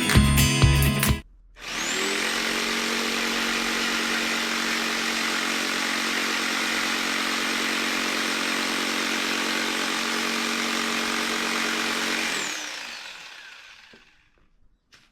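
An electric power tool's motor spins up, runs steadily for about ten seconds with an even whirring pitch, then winds down and stops.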